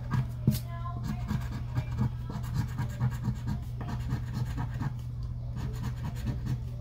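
A scratch-off lottery ticket being scratched with a round scratcher: quick, irregular scrapes, several a second, of the scratcher's edge over the card's coating, over a steady low hum.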